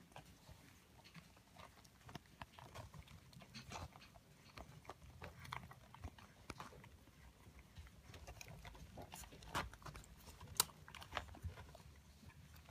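Newborn Bedlington terrier puppies suckling at their mother's teats: faint wet smacking and clicking, with a few sharper clicks about three-quarters of the way through.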